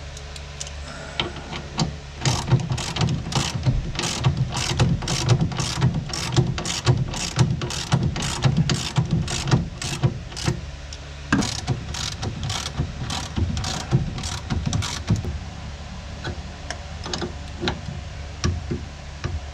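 Ratchet wrench clicking in quick, even strokes, about two to three clicks a second, as it tightens a hydraulic line fitting on a convertible top cylinder. The clicking breaks off briefly about halfway, resumes, then thins to scattered clicks near the end.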